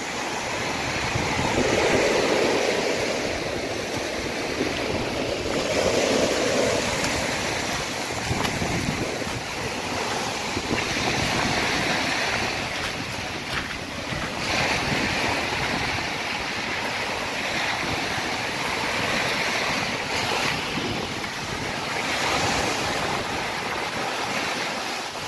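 Rough storm waves breaking and washing onto a rocky pebble shore: a continuous rush of surf that swells and eases every few seconds as each wave comes in. Wind buffets the microphone throughout.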